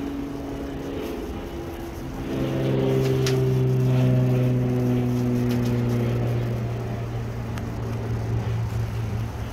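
A steady low engine or motor hum that grows louder about two seconds in, drifting slightly in pitch. A few faint clicks and rustles sound over it.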